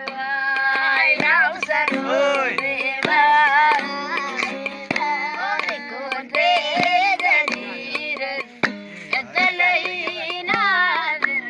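A singer's voice in long ornamented runs with sweeping pitch bends and vibrato, over instrumental accompaniment with a steady low drone and sharp percussive notes.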